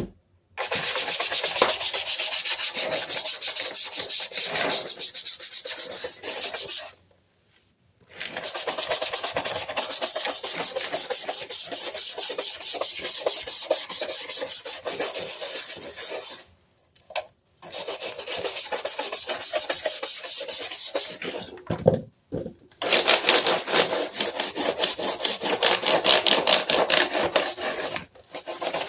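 Rapid back-and-forth scrubbing on a Dell keyboard, in long spells broken by a few short pauses.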